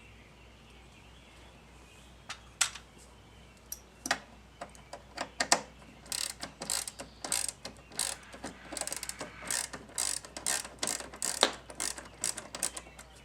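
Hand ratchet clicking in quick runs as screws are backed out of a dash speaker mount: a few separate clicks at first, then rapid ratcheting from about halfway in.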